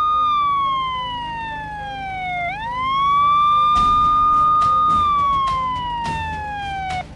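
Police car siren wailing: a held high tone that falls slowly, sweeps quickly back up, holds and falls again, then cuts off just before the end. Regular sharp thumps come in about four seconds in.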